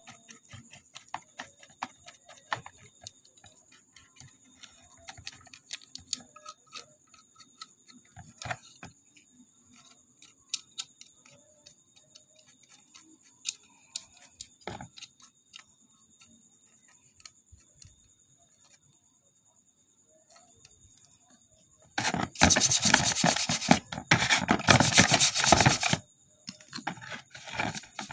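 Hand work on a car's hood latch: light clicks and scrapes of the latch parts, then after a long quiet stretch about four seconds of loud, rough rubbing, followed by a few lighter rubs. The latch is being cleaned because dirt has made it stiff.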